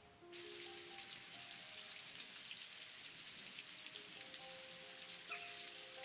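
Rain falling hard and splashing onto a wet flat surface: a dense steady hiss full of sharp droplet splats. It starts suddenly just after the beginning, with soft sustained music notes underneath.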